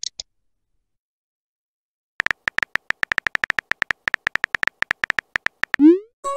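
Phone keyboard typing clicks from a texting app: a quick run of taps starting about two seconds in and lasting about three and a half seconds, then a short rising swoosh as the message is sent, with a multi-tone chime starting right at the end.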